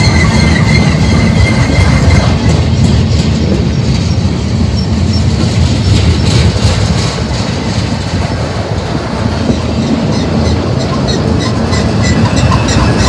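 Freight cars of a manifest train rolling past at close range: a steady heavy rumble of steel wheels on rail, with scattered clicks. A thin, high wheel squeal is heard at the start and again near the end.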